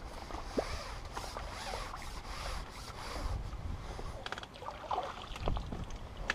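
Wind buffeting the microphone in a steady low rumble, with rubbing, rustling and light clicks of fishing tackle and a landing net being handled.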